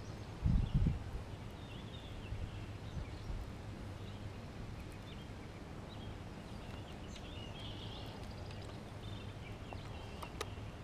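Outdoor ambience: a steady low hum and faint hiss, with faint short bird chirps scattered throughout and a couple of low thuds about half a second in.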